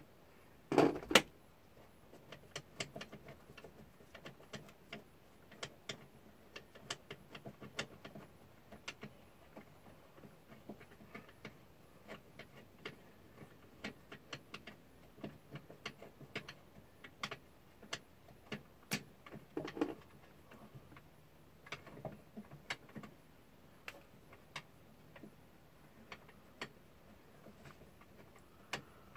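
Socket ratchet clicking in short runs as long bolts are backed out of a rooftop air conditioner's ceiling mount, with a louder knock about a second in.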